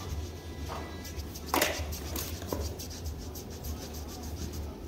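Pedicure foot file rubbing against the skin of a foot in short scratchy strokes, with one louder stroke about a second and a half in, over a low steady hum.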